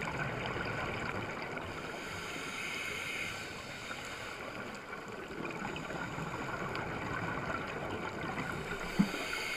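Underwater ambience picked up through a camera's waterproof housing: a steady rushing hiss with faint steady high-pitched hums, and a single sharp low knock about nine seconds in.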